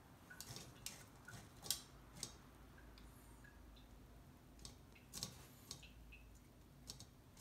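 Faint, scattered light clicks of chopsticks tapping against soup bowls and each other as garnish is placed.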